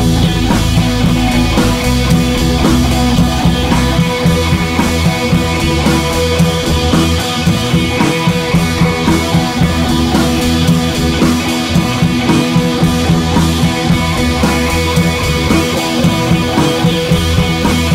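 Background rock music with electric guitar and a drum kit keeping a steady beat.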